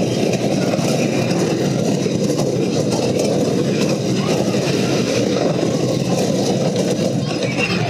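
A Gravity Group wooden roller coaster train running at speed over its wooden track, heard from on board as one steady, loud rumble.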